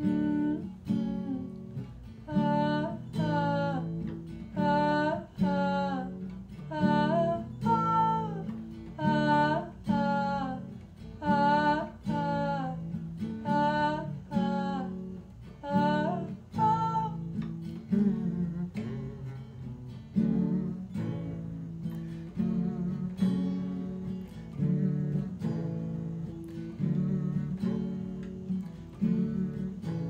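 Acoustic guitar strummed in a steady rhythm, with a singing voice carrying a wavering melody over it from about two seconds in until about seventeen seconds, after which the guitar plays on alone.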